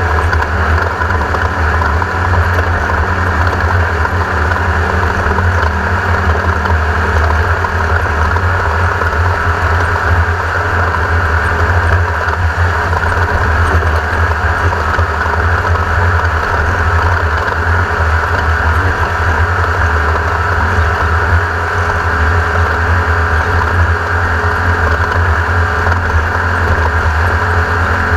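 A 1600-class desert race buggy driving hard, its air-cooled 1600 cc VW engine running steadily under load with chassis and terrain noise, heavy in the low end.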